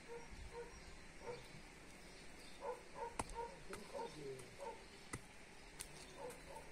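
Faint clucking of chickens, short notes repeated in quick runs, with a few sharp clicks, the loudest about three seconds in.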